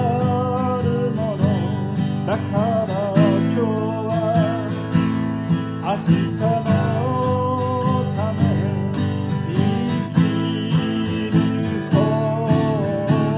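A man singing a slow song to his own strummed acoustic guitar; the sung melody wavers with vibrato over a steady strum.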